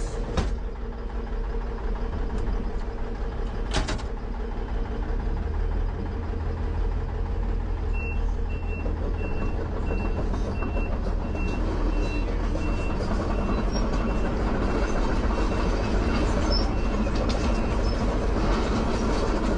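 Heavy diesel engine running, its low note growing heavier about five seconds in. From about eight seconds in, a backup alarm beeps steadily, about twice a second.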